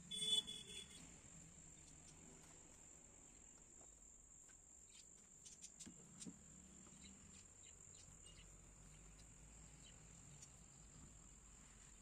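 Crickets chirring in a steady, high-pitched trill. A brief, louder pitched sound comes just at the start, and a few faint clicks follow midway.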